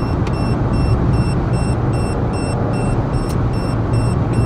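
Cabin noise of a 2009 Citroën C4 with its 1.6 VTi four-cylinder petrol engine cruising at about 120 km/h: a steady engine and road rumble. Over it a speed-warning box gives a quick, even run of short high beeps, about two and a half a second, alerting that the car is above the speed limit.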